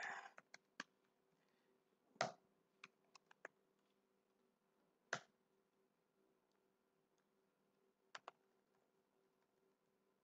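Computer keyboard keystrokes, sparse and quiet: a quick run of taps at the start, then single sharper key strikes about two, five and eight seconds in, with a few lighter taps between.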